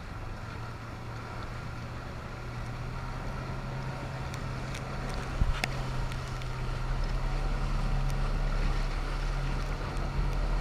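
Motorboat engine running with a steady hum, under rushing, splashing wake water and wind on the microphone, slowly growing louder. A single sharp knock about five and a half seconds in.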